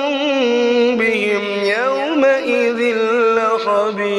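A man's voice reciting the Quran in a melodic tajweed chant, holding long notes that slide up and down in ornamented turns.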